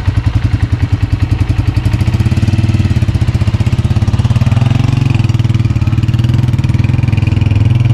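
Honda 125 Special Edition motorcycle's single-cylinder four-stroke engine idling with an even putter, then pulling away about four and a half seconds in.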